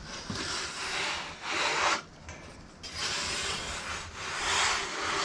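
Heavy freshly sawn black walnut slab slid across wood in two long scraping drags, about two seconds each with a short pause between.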